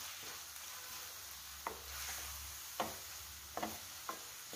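Onion and capsicum sizzling softly in sauce in a non-stick kadai while a spatula stirs them. The spatula knocks sharply against the pan four times in the second half.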